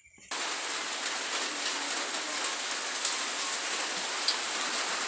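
Steady rain falling, an even hiss that starts abruptly about a third of a second in and holds constant.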